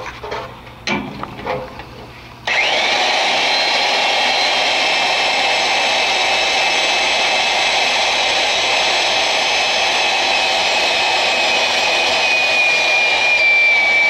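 A few knocks, then about two and a half seconds in a drill-driven roller tube expander starts abruptly and runs with a steady high whine, rolling a boiler tube into the tube sheet to seal it. Its pitch sinks slightly near the end.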